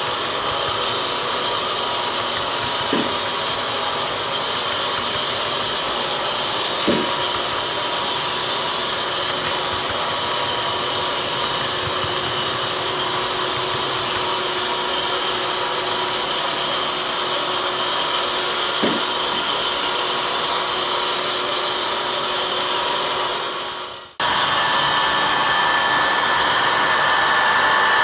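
HO scale model train running on the layout: a steady whir with a few faint, isolated clicks. The sound drops out abruptly a little before the end and comes back at the same steady level.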